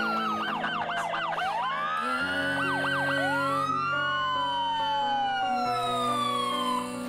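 Several police sirens sound at once: a fast yelp for the first second and a half, then overlapping slow wails rising and falling. Soft sustained music chords play underneath.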